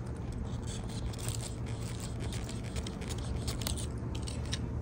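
Small knife blade scraping and sawing through the fleshy stem of an Echeveria cupido, a run of fine scratchy clicks.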